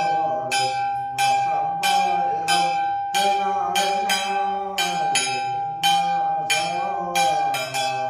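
A small bell struck in quick, slightly uneven strokes, about two a second, its clear tone ringing on between strokes, over a man's chanting voice in a ritual incantation.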